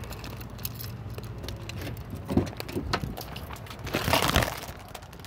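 Footsteps crunching on loose gravel, a few separate steps, over a low steady hum.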